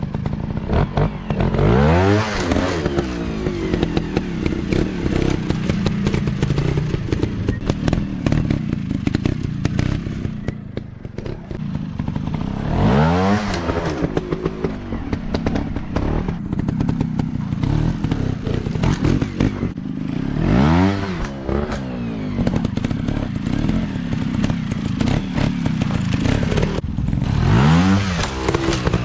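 Dirt bike engines running continuously, revving up and back down four times.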